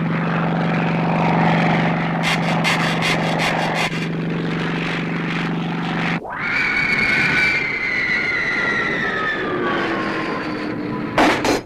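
Cartoon propeller-plane engine droning steadily, with a quick run of clicks a couple of seconds in. About six seconds in it cuts to a falling whistle that slides slowly down in pitch, the sound of a plane diving, and it ends in a short loud burst.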